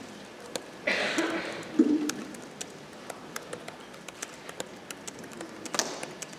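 Footsteps on a stage floor, a steady string of light taps at a brisk walking pace, with a short bit of voice about a second in and a sharper tap near the end.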